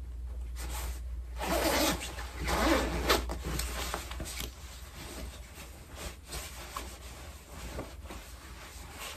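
Zipper of a quilted nylon puffer jacket being pulled, loudest about a second and a half in, followed by softer swishing rustles of the jacket's fabric as the hood is pulled up over the head.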